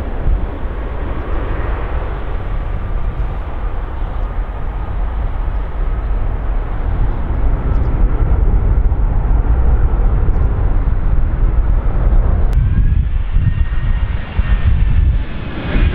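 Airliner engines on landing approach: a loud, steady low rumble with faint whining tones that slowly fall in pitch, and a fresh higher whine joining about thirteen seconds in.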